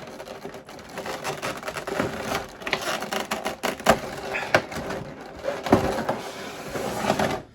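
Packaging crackling and creaking in quick irregular clicks as an action figure is tugged and worked free of its box.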